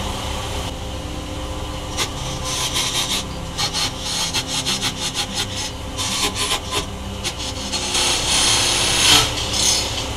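Wood lathe running with a steady motor hum while a small chisel cuts into the spinning wooden mallet blank in short, repeated rasping passes.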